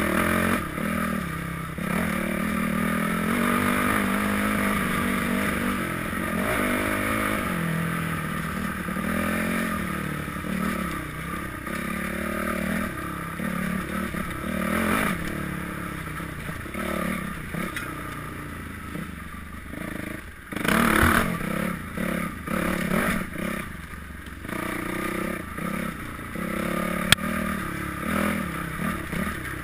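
Dirt bike engine running, its pitch rising and falling as the throttle opens and closes, with a louder rev about two-thirds of the way through and a single sharp click near the end.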